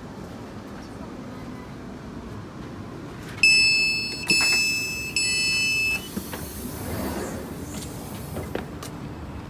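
Passenger train door signals: from about three seconds in, two electronic tones that each fade, then a steady beep lasting under a second, as the door-open button is pressed. Shortly after comes a brief rush of noise as the sliding door opens, over the steady low rumble of the stationary train.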